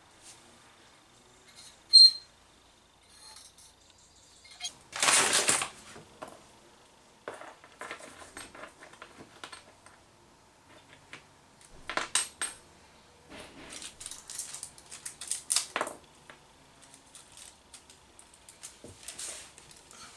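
Metal clinks and scrapes from work on a spoked motorcycle wheel being trued: one sharp ringing ping about two seconds in, a brief scrape around five seconds, then scattered light clicks and clinks.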